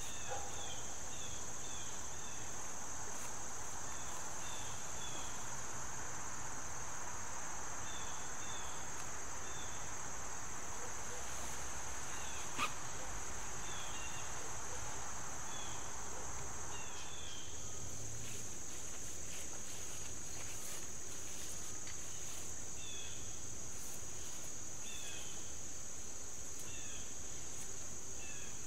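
A steady, high-pitched insect chorus drones throughout, with short chirps repeating over it. A soft hiss sits beneath it for the first half and fades out about seventeen seconds in, and there is one sharp click about halfway through.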